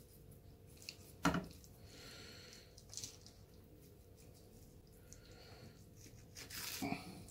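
A knife set down on a wooden chopping board with one sharp knock, among faint wet squishing of raw fish being handled. Near the end, a tearing rustle as the skin of a raw sole is pulled off the flesh by hand.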